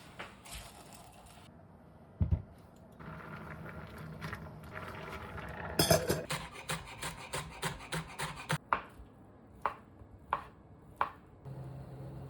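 Kitchen prep on a wooden cutting board: a single thump about two seconds in, then a quick run of knife chops at about four a second, and three separate knocks near the end.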